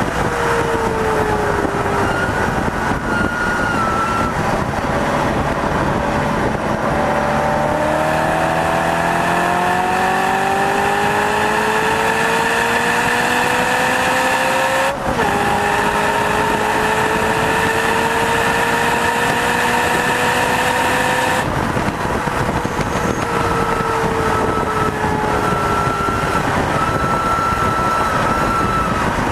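Car engine under load on a race track, its pitch climbing steadily, with a sudden drop about halfway through like a gear change, then sinking slowly as the car eases off, over heavy wind and road noise.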